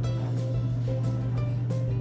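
Background music: a steady low sustained note under a melody of short held notes.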